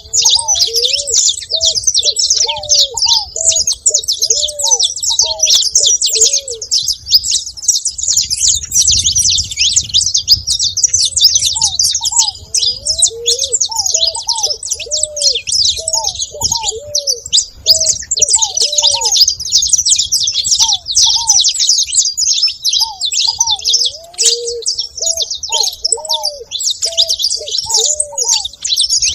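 A flock of saffron finches chirping and twittering continuously, with a scaled dove (fogo-apagou) cooing in repeated phrases of short arched notes underneath, in several bouts with pauses between.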